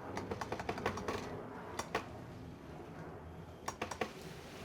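Small hard clicks and taps of the chainsaw's recoil starter and pull-cord handle being handled while the slack cord is checked. There is a quick run of clicks in the first second, then a few single clicks about two and four seconds in.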